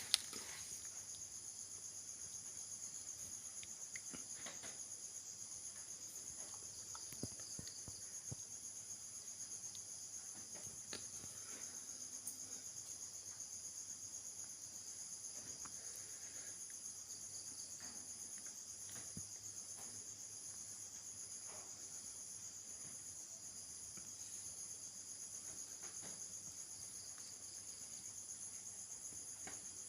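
Steady high-pitched insect chorus, with a few faint clicks now and then.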